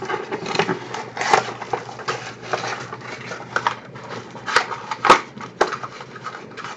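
Irregular light clicks and taps with some rustling, the sound of small objects being handled close to the microphone; the sharpest taps come about a second and a half in and again about five seconds in.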